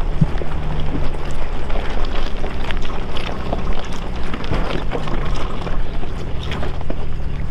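R50 Nissan Pathfinder crawling up a steep rocky slope. A steady low engine drone runs under a constant scatter of sharp cracks and clicks as the tyres grind over loose rocks and kick stones up.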